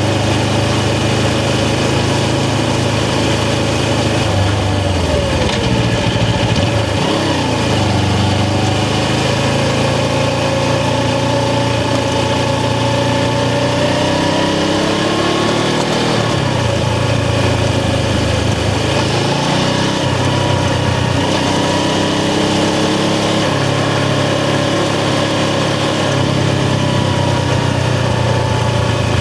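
Suzuki GS500's air-cooled parallel-twin engine running while riding, its pitch climbing and dropping several times as the bike speeds up and eases off.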